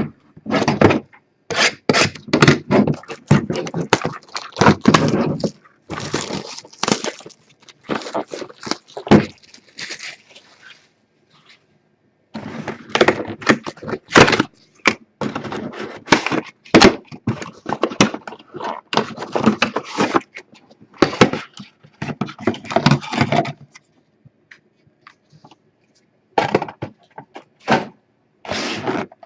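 Trading-card boxes being unsealed and opened by hand: wrapping crackling and tearing and cardboard being handled, in irregular bursts with two short pauses.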